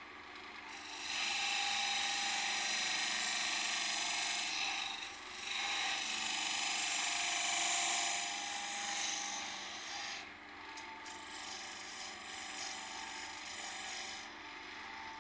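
A hand-held turning tool cutting into the end of a spinning wooden box blank on a wood lathe makes a loud scraping hiss. It starts about a second in, eases briefly near the middle, goes lighter in the last few seconds and stops near the end, over the lathe's steady running.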